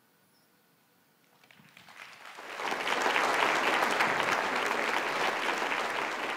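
Audience applauding: near silence for the first second and a half, then clapping swells quickly and holds steady.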